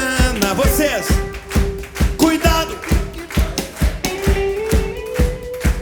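A rock band playing live in an instrumental passage: a steady drum beat of about two to three strokes a second under held and sliding melody notes.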